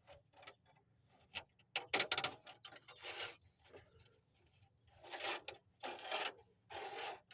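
Rubbing and scraping noises of hands at work, with scattered clicks, a sharp clatter about two seconds in, and several short scrapes after it.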